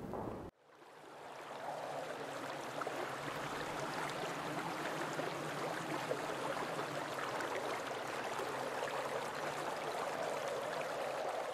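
Steady sound of running water, like a stream, fading in after a brief silence about half a second in, with a faint low drone beneath it.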